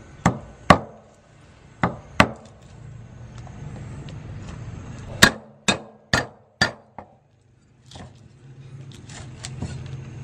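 Cleaver chopping garlic and lemongrass on a thick round wooden chopping block: two pairs of sharp chops in the first couple of seconds, then a run of five blows about half a second apart, followed by lighter taps.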